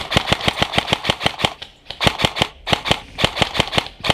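Airsoft gun firing on full auto in several rapid bursts of sharp cracks, about nine shots a second, the first burst the longest.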